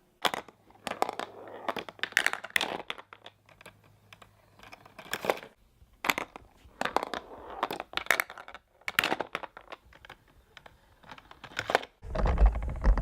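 Irregular clicks, taps and rustling as small objects are handled and set in place. About a second before the end, a loud low rumbling noise starts.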